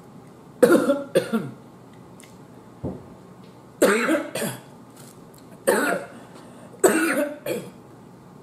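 A woman coughing in clusters, mostly two at a time, about seven coughs in all, because food went down the wrong way while she was eating.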